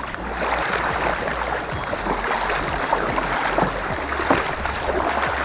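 Water rushing and splashing steadily along the hull of a sit-on-top kayak being paddled, with many small splashes from the paddle strokes.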